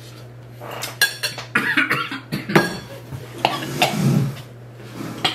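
A man coughing and spluttering several times while eating a forkful of rice, with a few clicks of a fork on a plate; he is reacting to rice he finds very salty.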